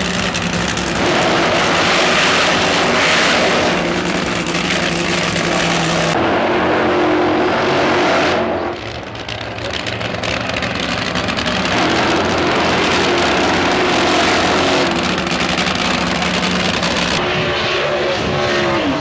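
Drag race cars doing burnouts: engines held at high revs while the rear tyres spin and smoke, in several shots cut one after another. Near the end an engine's pitch falls as it comes off the throttle.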